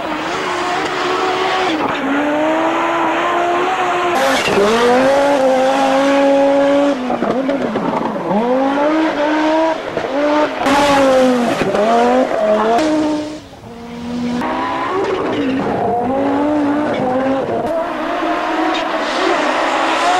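Audi Quattro S1 Group B rally car's turbocharged five-cylinder engine at full racing revs, its pitch climbing and dropping again and again with throttle and gear changes. It dips briefly about thirteen seconds in.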